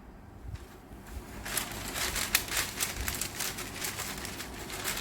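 Butter paper crinkling and rustling as a rolling pin is rolled over a bread slice pressed between two sheets, starting about a second and a half in.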